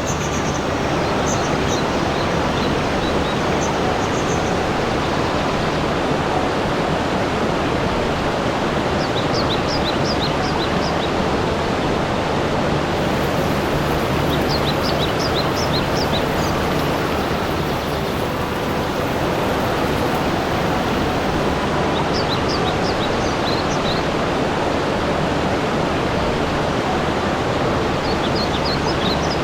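Steady rush of flowing water, even and unbroken. A bird chirps in short, quick runs of high notes every several seconds.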